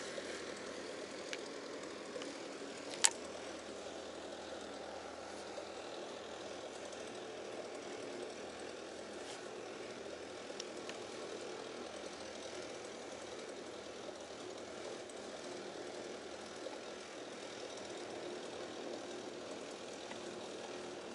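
Steady low hum of distant road traffic, with a single sharp click about three seconds in.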